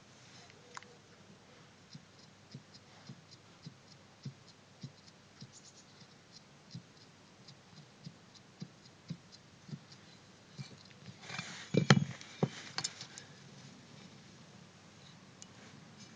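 Worn front strut mount handled and rocked, its loose rubber-bonded damper core giving small clicks about twice a second, then a louder clatter of knocks about twelve seconds in. The play in this core is the cause of the knocking from the front suspension.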